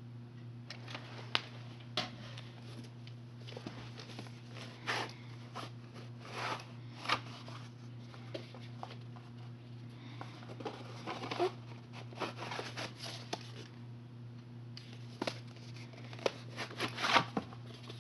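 Plastic VHS cassettes and cases being handled: scattered sharp clicks and clacks with short rustling bursts, over a steady low hum.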